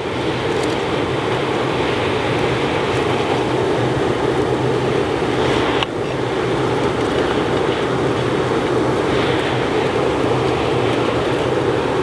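Electric blower fan running steadily, forcing air up through the charcoal bed of a homemade foundry furnace, a constant rush of air and fire over a low motor hum, with a brief break about six seconds in.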